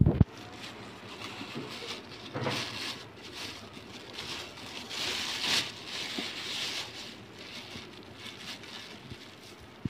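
Thin plastic bag crinkling and rustling in bursts as hands work at its knotted top, after a single heavy thump right at the start.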